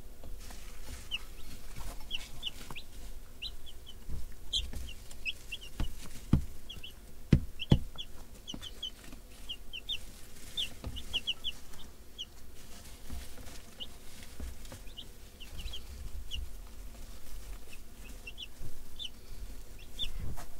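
A brood of baby chicks peeping: many short, high peeps coming singly and in quick clusters, over a soft rustle of the chicks moving. A few sharp knocks come between about six and eight seconds in.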